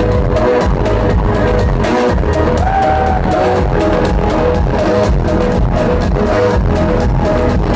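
Electronic dance music with a steady beat and a repeating synth melody, played loud over a concert sound system; one note is held longer about three seconds in.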